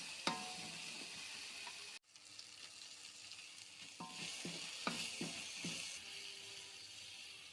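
Food frying in oil in a pan, with a steady sizzle and scattered scrapes and knocks of a spatula stirring it. The sizzle breaks off sharply about two seconds in and resumes at once.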